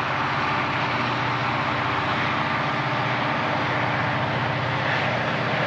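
Several Southern Pacific diesel-electric locomotives heading a freight train, their engines working hard with a loud, steady drone.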